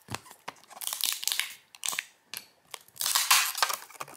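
Plastic packaging crinkling and rustling in irregular bursts with small clicks, as a figurine is handled and unpacked from it.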